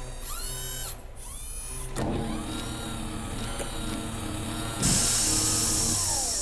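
Sci-fi machine sound effects for a powered exoskeleton's systems check. Short rising and falling servo whirs come first, then a steady hum with several held tones. A loud burst of hissing air comes about five seconds in, and a falling whine near the end.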